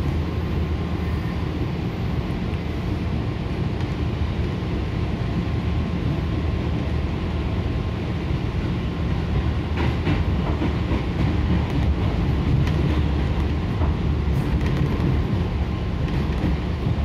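JR 205-0 series electric multiple unit heard from inside the passenger car while running at speed: a steady low rumble of wheels and running gear with a faint steady tone above it. A few brief clicks come about ten seconds in and again a few seconds later.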